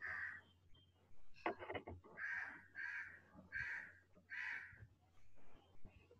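A bird cawing faintly and repeatedly: about six short, harsh caws spaced under a second apart, with a few clicks about a second and a half in.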